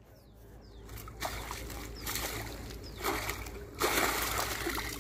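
Water splashing as a big rohu thrashes in a landing net and is pulled out at the water's edge, in several bursts that grow, loudest near the end.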